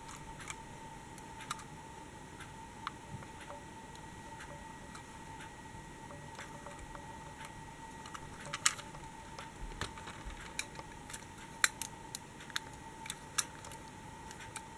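Small irregular clicks and taps of die-cast toy bus and tram models being handled and turned over in the hands, with a few sharper clicks in the second half, over a faint steady tone.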